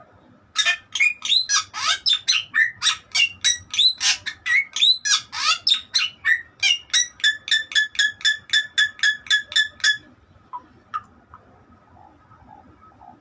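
Bali myna singing: a fast run of loud, varied whistled calls that settles into one note repeated about four times a second, then stops abruptly about ten seconds in.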